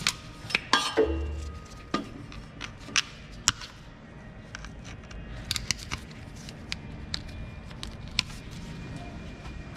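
Pliers and hose clamps on rubber transmission cooler hoses making irregular clicks, snaps and knocks as the clamps are worked loose from the metal lines. Faint music plays underneath.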